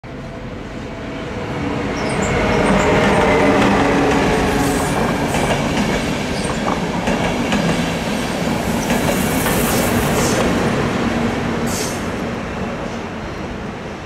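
A double-deck passenger train hauled by ÖBB Taurus electric locomotives passing close by: wheels rumbling and clattering over the rail joints and points, with the steady hum of the electric locomotives. It grows louder over the first few seconds, stays loud through most of the passage and eases off near the end.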